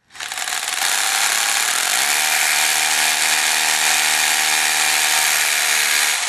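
Power drill with a 6 mm masonry bit boring a pilot hole into concrete. It starts up at once and runs steadily at full speed, with a steady motor hum joining about two seconds in.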